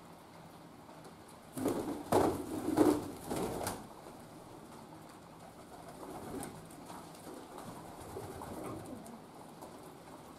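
City pigeons cooing, loudest in a burst about two seconds in, then softer cooing later on.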